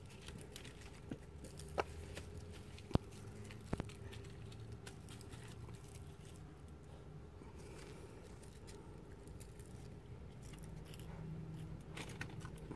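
Faint swishing of water and black sand swirled around a plastic gold pan, with a few light clicks about two, three and four seconds in.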